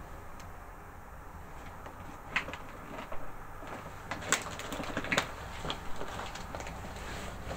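Quiet room tone broken by a few short, sharp clicks and knocks, starting about two and a half seconds in. They come from a person handling a flashlight and shifting the camera in a bare room.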